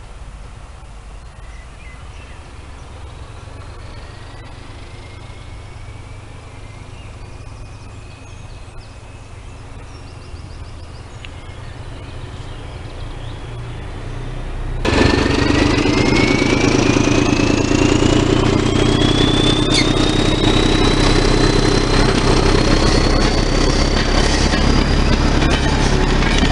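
A diesel locomotive heard at a distance beyond trees with a faint rising whine. About halfway in it cuts to a British Rail Class 14 diesel-hydraulic locomotive with its Paxman Ventura engine working hard close by, much louder, with a whine that climbs steadily in pitch.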